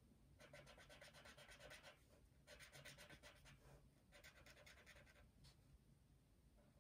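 Brush pen tip scratching across paper in quick back-and-forth colouring strokes, about ten strokes a second. The strokes come in three spells with short pauses between, and they are faint.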